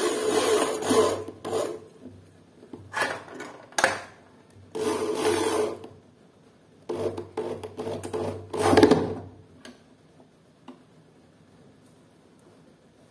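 Makita HP1630 corded drill driving screws through a swing-bar door guard into an aluminium door frame. It runs in about six short bursts, stopping and starting. The last burst is the loudest and ends about nine seconds in.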